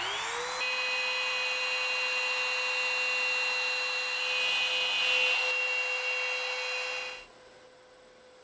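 Bosch Colt palm router spinning up and running at a steady whine as its carbide bit cuts an eighth-inch-deep slot along a guitar neck for a carbon fiber rod. The sound cuts off suddenly about seven seconds in, leaving a faint hum.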